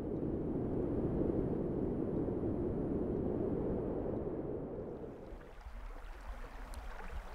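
A steady low rumbling noise that fades about five seconds in to a quieter, thinner background noise.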